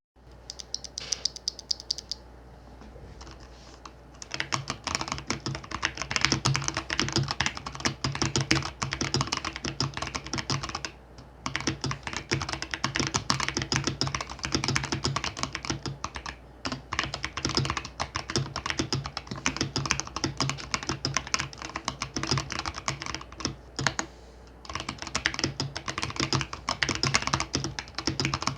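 Mechanical keyboard with Gazzew Boba U4T tactile switches on stock 68 g springs being typed on. A few scattered keystrokes come first, then about four seconds in it turns to fast continuous typing, broken by a few brief pauses.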